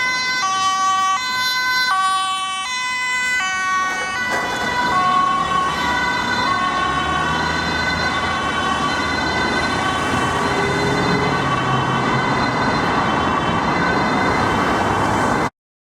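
Emergency vehicle's two-tone siren alternating between a high and a low note. About four seconds in, the pitch drops slightly and the two notes blur together as tyre and engine noise rise. The sound cuts off abruptly near the end.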